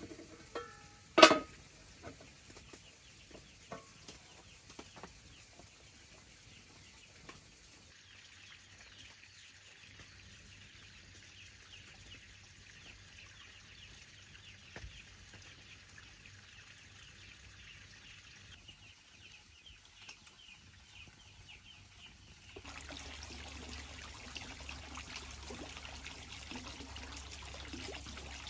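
Water trickling and pouring steadily, starting suddenly about 23 seconds in after a long stretch of faint background. A single short, loud sound comes about a second in.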